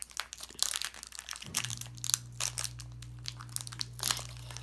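Foil wrapper of a Pokémon booster pack crinkling and crackling as it is torn open by hand. A low steady hum comes in about one and a half seconds in.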